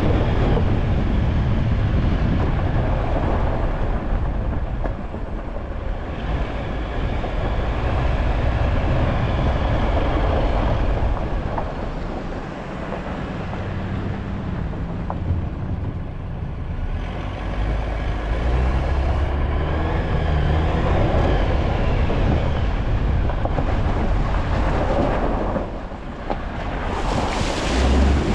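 Off-road vehicle driving along a gravel dirt track, a steady rumble of tyres and engine. Near the end a bright rush of splashing water comes in as it drives into a flooded wash.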